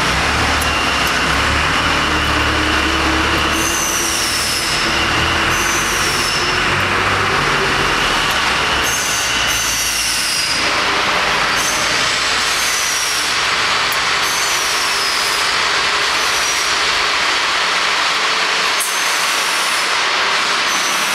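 Steady machinery noise in a factory workshop: an even hiss, with a low hum that fades about halfway through, and a short, high, falling squeal that comes back every second or two, as from a machine running through its cycle.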